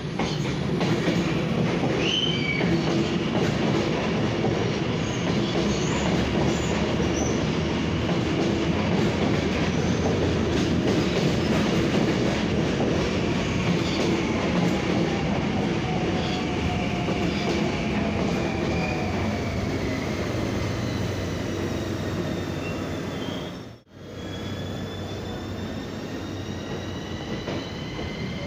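CAF electric metro train running into the platform: a steady rumble of wheels on rail, with a brief high wheel squeal about two seconds in. Its motor whine falls in pitch as the train slows. The sound cuts out for a moment near the end and comes back with a rising whine.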